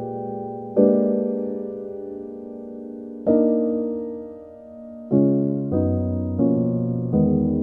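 Slow, gentle piano music: sustained chords struck one at a time and left to ring and fade, the chord changes coming closer together in the second half.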